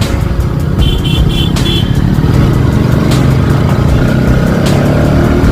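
Bajaj Pulsar NS200 single-cylinder motorcycle engine running under way, its note rising near the end as it accelerates. About a second in, four short high beeps sound in quick succession.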